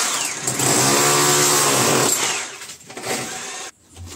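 Electric hammer drill with a chisel bit chipping a pipe channel into a brick wall, its motor pitch rising and falling under the operator's trigger. It runs hard for about two seconds, eases off, gives a short burst near three seconds, then stops suddenly.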